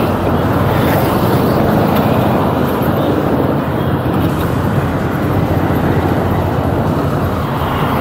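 Steady road traffic noise from cars, motorbikes and auto-rickshaws, heard from a bicycle moving along with the traffic.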